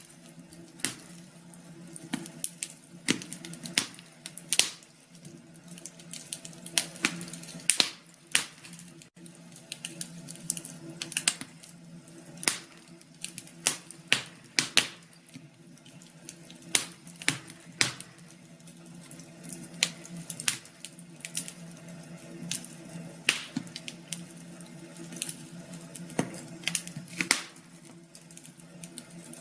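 Wood fire crackling, with irregular sharp pops and snaps several times a second over a steady low hum.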